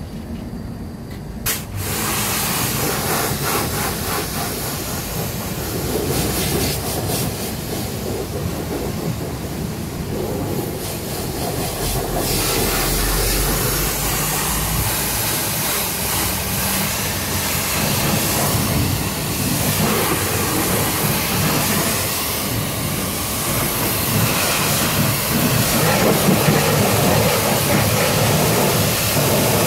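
Pressure-washer lance spraying water onto a car's bodywork. A steady hiss of the jet starts abruptly about two seconds in and carries on, rising and falling a little as the spray moves.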